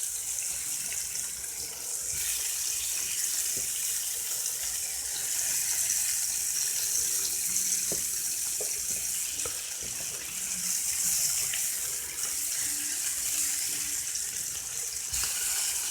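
Unbattered catfish frying in butter in a pan, a steady high sizzle with small crackles and pops.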